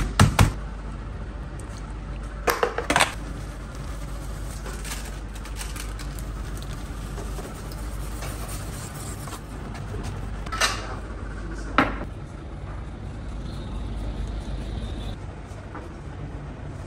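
Kitchen handling sounds: a few short clusters of knocks and clatters from utensils and metal pans, over a steady low hum.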